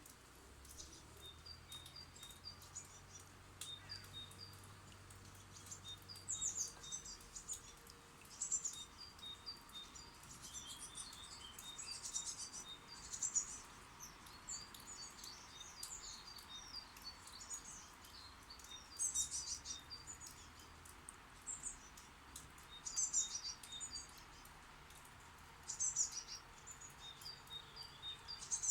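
Small songbirds at a nest box chirping, adults and nestlings feeding: high, rapid chirps throughout, with louder bursts of calling every few seconds.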